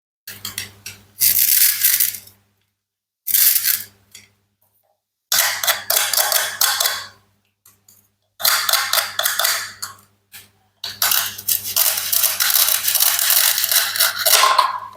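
Plastic and wooden toy fruit and vegetables being cut apart with a toy knife: clicking, rattling and scraping in five separate bursts with dead silence between them, the last and longest near the end.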